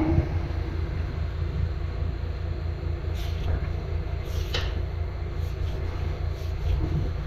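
High-pressure drain jetter running with a steady, pulsing low drone while its hose is worked into a root-choked sewer pipe, with a couple of brief scrapes about three and four and a half seconds in.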